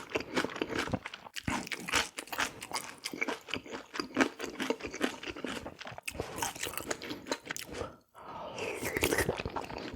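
Close-miked eating: crunchy chewing and biting, with dense, irregular clicks and crackles and a brief break about eight seconds in.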